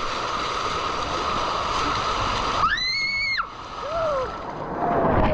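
Water rushing along a water slide as a rider goes down it, with a high held squeal about three seconds in and louder splashing near the end.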